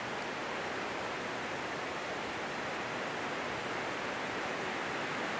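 Steady rushing noise, even throughout, with no calls or other distinct sounds in it.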